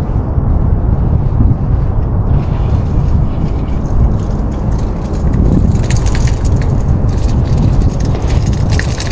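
Heavy low rumbling wind noise buffeting the microphone, with a run of sharp crackling ticks in the second half.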